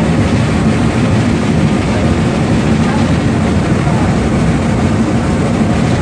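Cass Shay No. 11, a geared Shay steam locomotive, running close by with a dense, steady mechanical din of exhaust and running gear.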